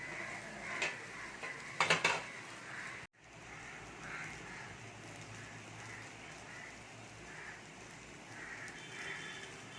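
Egg omelette frying on a hot, oiled tava: a soft, steady sizzle. A few sharp knocks of a spatula on the pan in the first two seconds.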